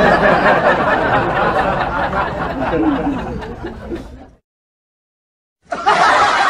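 Laughter sound effect, people snickering and chuckling, that cuts off suddenly about four seconds in; after a second or so of dead silence a second laughing clip starts near the end.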